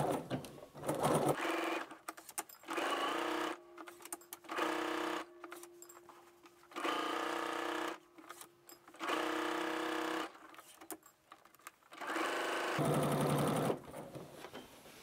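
Electric sewing machine stitching a seam in about half a dozen short runs, starting and stopping, each run a steady motor hum, with clicks between them.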